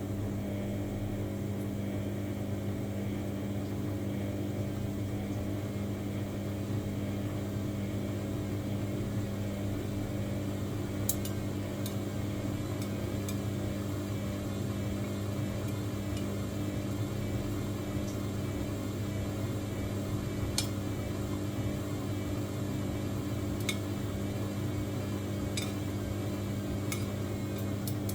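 Samsung washing machine running with a steady motor hum, with a scattering of light clicks starting about eleven seconds in.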